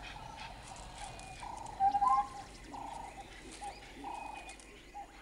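A series of short animal calls, each held at one middle pitch, loudest around two seconds in, where one call rises briefly in pitch, over a faint natural background.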